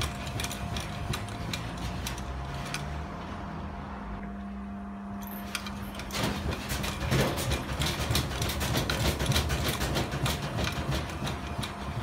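Front-loading washing machine spinning, its motor humming steadily under rapid knocking and rattling. From about six seconds in the knocking grows louder as the machine rocks and bounces on a trampoline.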